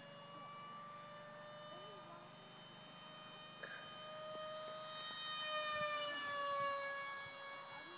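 Electric ducted fan whine of a small 55 mm EDF radio-controlled F-35 jet in flight, a steady high whine with several tones. It grows louder as the model passes close overhead, then its pitch drops as it moves away.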